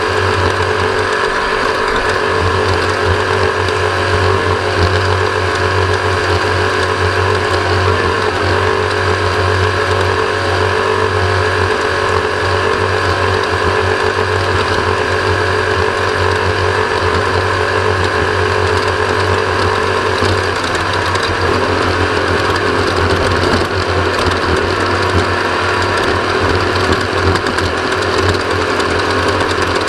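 Off-road race vehicle running at speed, heard from on board: a steady engine and drivetrain drone with a whirring gear noise over it, the pitch shifting slightly about two-thirds of the way through.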